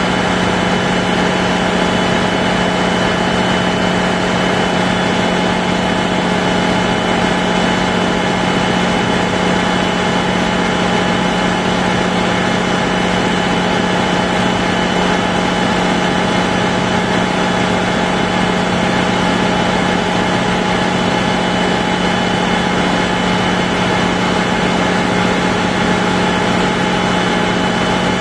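Caterpillar auxiliary diesel generator running steadily at constant speed: a loud, even drone with a strong low hum and several higher steady tones.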